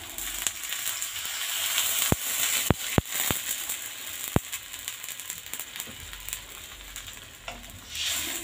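Water poured into a hot wok of frying spice paste, hissing and sizzling, with several sharp pops about two to four seconds in. Near the end a wooden spatula stirs through the wok.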